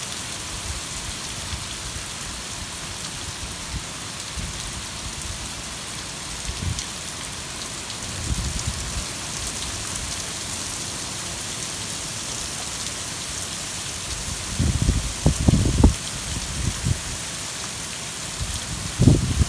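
Heavy rain pouring steadily, a dense even hiss of drops on pavement and grass. Irregular low rumbling bursts come through about halfway in and again over the last few seconds, louder than the rain.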